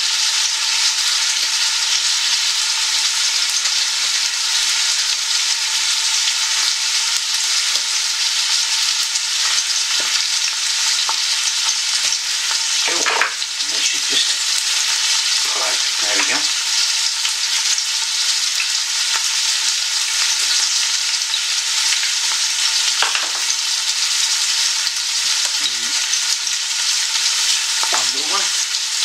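Chopped red onions sizzling steadily in a hot pan, a continuous frying hiss. A few short, wavering pitched sounds come through about halfway and again near the end.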